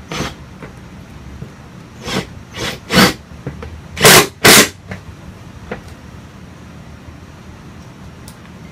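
Cordless power driver run in short trigger bursts to drive furniture screws into the chair frame: six brief bursts, the loudest pair about four seconds in.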